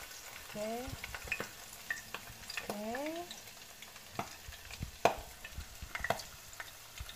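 Battered bell pepper leaves deep-frying in hot oil: a steady sizzle with scattered sharp pops and crackles.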